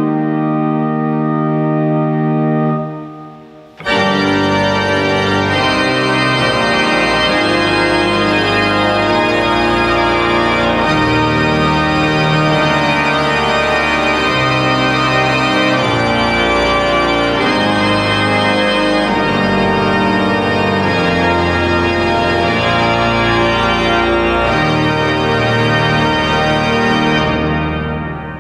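The Oliwa Cathedral pipe organ playing. A soft held chord fades away, then about four seconds in the full organ comes in loud, with deep bass notes and bright upper tones, sustaining dense chords that taper off near the end.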